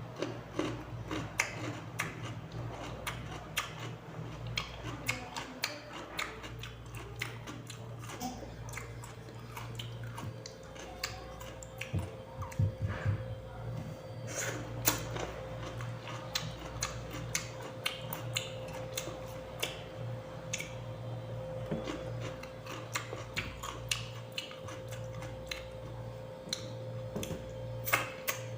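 Someone chewing crisp raw cucumber, with many irregular crunches and clicks, over a steady low hum.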